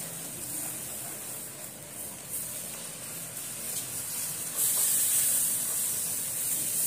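Besan (gram flour) frying in hot ghee, sizzling and frothing as milk is stirred in with a spatula. The sizzle gets louder about two-thirds of the way through.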